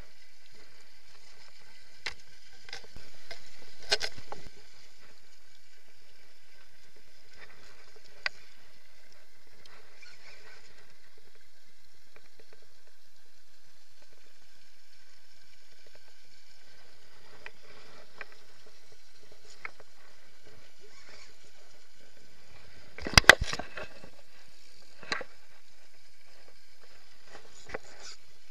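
Scattered clicks and knocks from a spinning rod and reel being handled while playing a hooked wels catfish, over a steady hiss. A louder rustle comes a few seconds in, and the loudest cluster of knocks comes about three-quarters of the way through.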